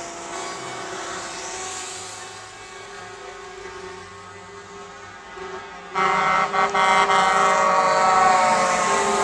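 Truck air horns sounding: fainter steady horn tones at first, then a much louder, sustained air-horn blast that starts suddenly about two-thirds of the way in, with two brief breaks just after it begins.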